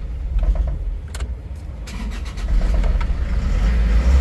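Isuzu 4JA1 four-cylinder diesel engine being started, catching quickly about two and a half seconds in and settling into a steady run. The quick start is the sign that the hard starting, caused by a faulty crankshaft position sensor, is cured now that the sensor is replaced.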